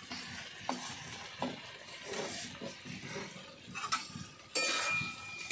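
Pointed gourd and potato pieces being scraped into a metal wok of frying spices and stirred with a spatula: light clinks and scrapes over a faint sizzle. Near the end, a louder scrape with a ringing metallic tone.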